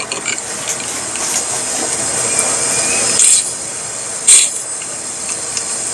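Butter sizzling in a hot frying pan: a steady high hiss, with two short, sharper bursts about three and four seconds in.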